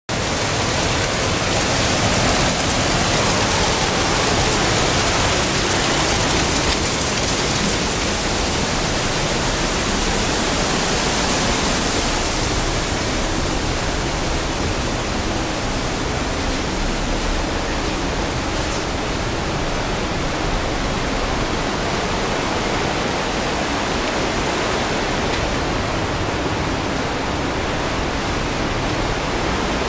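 Water cascading down a rock face onto the trail, a steady rushing hiss that turns duller about halfway through.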